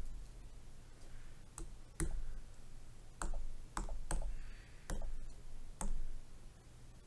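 Typing on a tablet's on-screen touch keyboard: about six sharp taps at uneven intervals, over a steady low hum.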